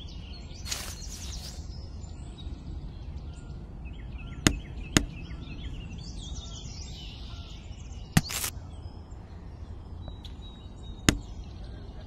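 Small plastic toy apples being plucked and dropped into a clear plastic toy trolley bin: a handful of sharp clicks and taps a few seconds apart, over a steady low background hiss with faint chirps.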